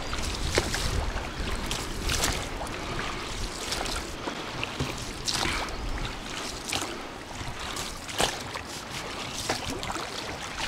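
Scattered short clicks and splashes as a freshly landed wild carp (sazan) is handled and unhooked at the water's edge, over lapping water and wind rumbling on the microphone.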